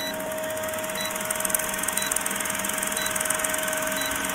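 Old film projector sound effect: a steady whirring hum with a fast, fine clatter and a short high blip about once a second, as used over a film countdown leader.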